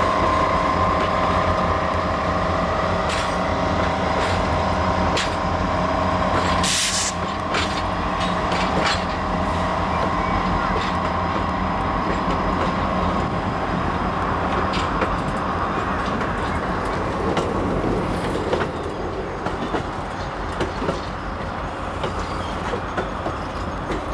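EMD E8 diesel locomotives rolling slowly past with a steady engine drone, which fades after the first several seconds as the passenger cars follow, their wheels clicking over rail joints. A brief high hiss about seven seconds in.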